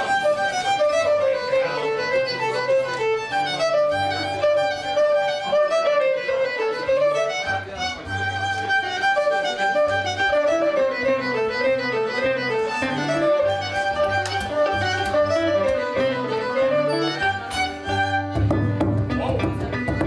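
Celtic folk band playing a tune, with the fiddle carrying a steady stepping melody over banjo and guitar accompaniment. About eighteen seconds in, the sound fills out as the bodhrán and heavier strumming come in.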